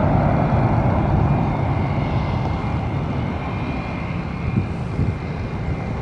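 Jet airliner passing low on its landing approach, its engine noise a steady rush with a faint high whine that slowly fades.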